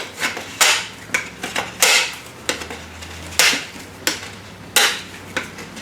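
A hand shaping tool worked against a PVC pipe in short strokes, about eight of them at uneven spacing, as the pipe end is shaved down to fit a vacuum hose.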